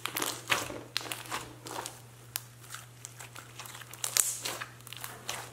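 Lumpy clear-glue slime mixed with crushed jelly cubes being squeezed and kneaded by hand, giving an irregular run of crackling, squishing pops.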